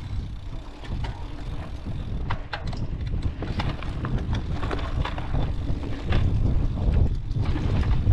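Mountain bike rolling fast down a dirt trail: wind buffeting the microphone under the rumble of the tyres, with the bike rattling and clicking over bumps. It gets louder about six seconds in.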